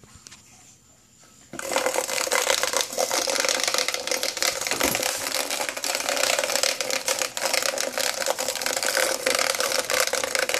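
A large winged insect trapped in a plastic food container, buzzing and rattling its wings against the plastic. The loud, dense rattling buzz starts suddenly about a second and a half in and keeps going without a break.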